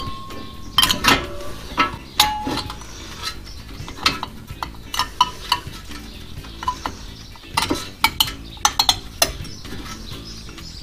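Sharp metal clicks and clinks from a front disc brake caliper and its brake pads being handled and fitted, coming in clusters, a few clinks ringing briefly.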